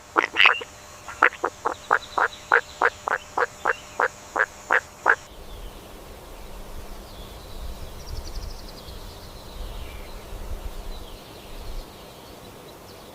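A train of short animal calls, about three a second, that cuts off abruptly about five seconds in. After that comes a quieter background with a low rumble and a few faint high chirps.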